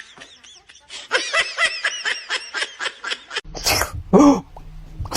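Rapid, rhythmic laughter, about five or six pulses a second. About three and a half seconds in it gives way to short breathy bursts and a brief cry that falls in pitch, over a low hum.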